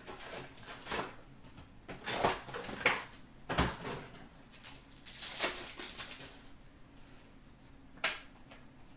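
Hands handling a trading card box, packs and cards: a string of separate rustles, paper-and-cardboard scrapes and light taps, with a dull thump about three and a half seconds in and a longer crinkling hiss around five to six seconds in.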